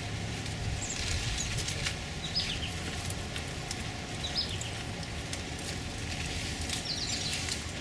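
Leaves and stems of a gooseberry bush rustling, with many small scattered clicks, as ripe gooseberries are picked by hand. A few short high chirps come through now and then.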